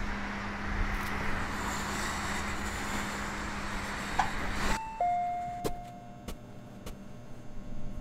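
Steady outdoor traffic hiss with a low hum, which cuts off abruptly about halfway through as a two-note descending door chime (ding-dong) sounds. After it the background is much quieter, with a few sharp clicks.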